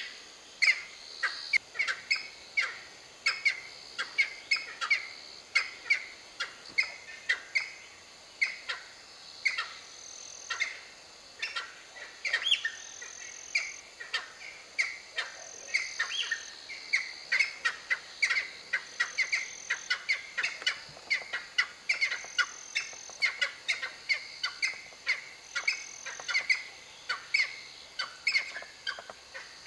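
Birds calling: short sharp chirps, two or three a second, without a break. Under them a steady high tone runs for about the first ten seconds, then a higher one-second whistle repeats about every three seconds.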